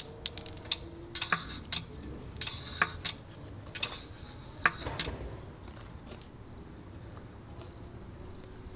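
Scattered sharp metallic clicks and taps, several in the first five seconds, from hands working the timing-chain sprockets and parts on a VW VR6 engine block. Under them, insects chirp in a steady high pulse about twice a second.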